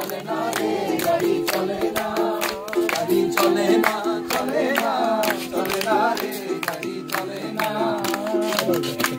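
Informal group singing of a Bengali song, voices together, to a strummed acoustic guitar.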